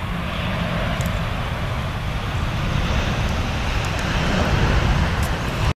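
Boeing 737-800's CFM56 jet engines running as the airliner rolls out along the runway after touchdown, a steady rushing jet noise that grows louder as it passes close by. Wind buffets the microphone with a low rumble.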